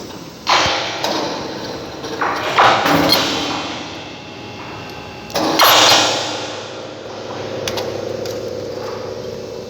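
Factory machine and its hook grinding against each other, metal-on-metal friction giving an eerie screeching and groaning. It surges loudly three times, about half a second, two and a half and five and a half seconds in, then settles into a steady drawn-out tone.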